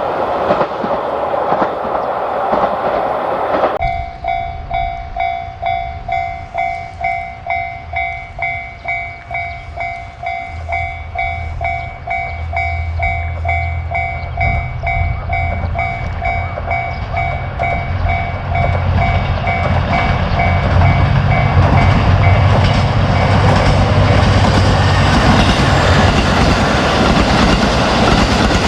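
Train noise cuts off a few seconds in, and a Japanese level-crossing warning bell takes over, ringing its repeated two-pitch clang at a steady pace. From about ten seconds in a diesel train's low engine hum grows, and the train passes over the crossing, its running noise covering the bell near the end.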